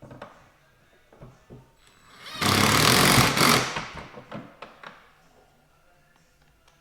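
A power driver runs a bolt into the sliding-door handle bracket of a Dodge Grand Caravan in one burst of about a second and a half, preceded by a few light clicks of the bolt and tool being handled.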